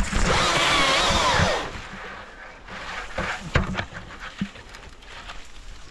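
Husqvarna 542i XP battery chainsaw running in a short burst of about a second and a half, its electric motor and chain whining with a wavering pitch. After it come scattered cracks and rustles of spruce branches.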